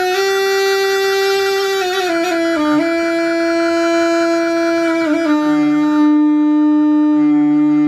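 A Sundanese toleat, a bamboo reed pipe, playing a slow melody. Long held notes step down in pitch, with short slides between them, and the last low note is held for nearly three seconds.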